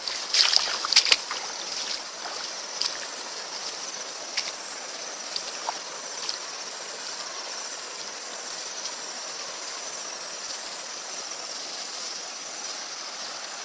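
Water splashing several times in the first second or so, then a steady trickle of water under a constant high-pitched insect chorus.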